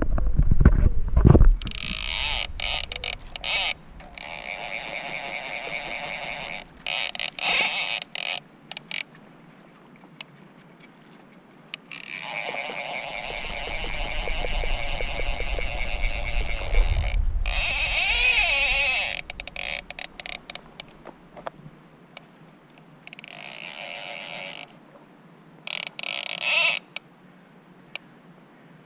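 Fly reel's click-and-pawl ratchet buzzing in repeated bursts, the longest lasting about six seconds, while a hooked Atlantic salmon is played on the fly. Low handling and water rumble comes in under the reel at the start and again about halfway through.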